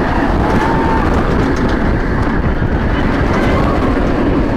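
Loud, steady wind rush over a phone's microphone mixed with the rumble of an inverted roller coaster speeding along its track, with a brief faint scream about half a second in.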